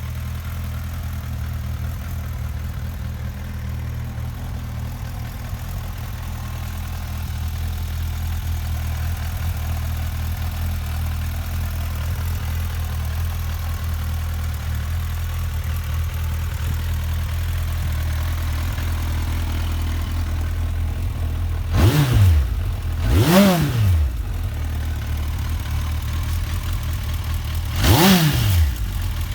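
Suzuki Bandit 1250's liquid-cooled 1255 cc inline-four idling steadily, then revved in quick throttle blips: two about three-quarters of the way through and a third near the end, each rising and falling back to idle.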